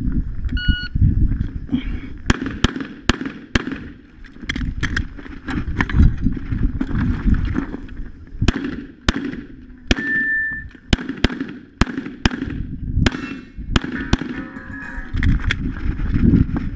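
An electronic shot-timer start beep, then a long string of pistol shots, some two dozen, fired in quick pairs and clusters with short pauses between, as the shooter moves through a competition stage.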